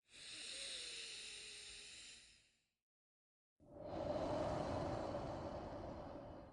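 A person breathing slowly and deeply during breathing meditation. One long breath of about two and a half seconds, a second of silence, then a louder, longer breath of about three seconds.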